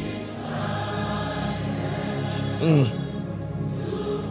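Gospel worship music: sustained choir and instrumental chords, with one short, loud vocal cry whose pitch bends about two-thirds of the way through.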